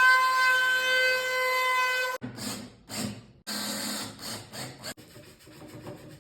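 A steady high whine with several overtones cuts off abruptly about two seconds in. It is followed by a run of short, irregular scraping and rubbing sounds that grow fainter.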